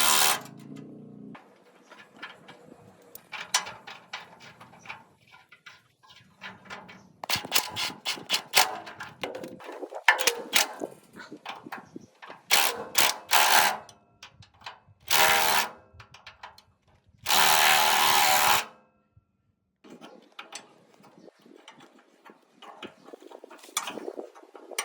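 Workshop power tool run in short bursts of about a second each, several times, between scattered clicks and knocks of metal parts being handled.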